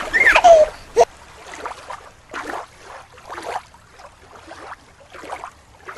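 Water swishing in soft, uneven washes, several in a row. A short sliding tone comes at the very start, and a sharp click comes about a second in.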